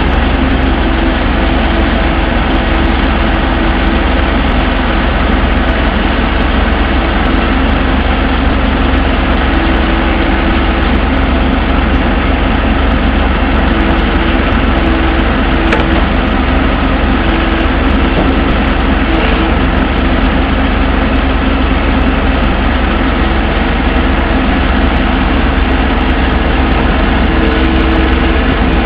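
Compact excavator's diesel engine running steadily while it works its boom and tracks.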